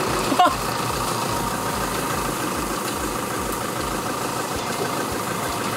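Tractor engine running steadily while it tows an open wooden wagon along a dirt lane, heard from the wagon. A brief sharp noise about half a second in.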